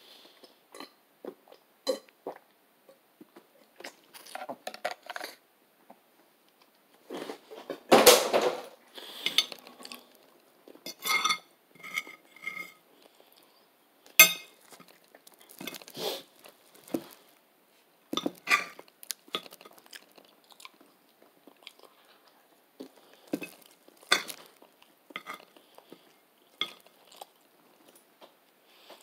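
Close-up sounds of a person eating and drinking: chewing and mouth noises with scattered clicks and knocks of things being handled, the loudest about eight seconds in.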